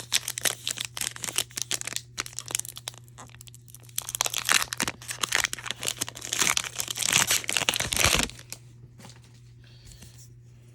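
Foil wrapper of a Pokémon trading-card booster pack crinkling as it is handled and torn open. The crinkling is heaviest from about four to eight seconds in, then dies down to light rustling.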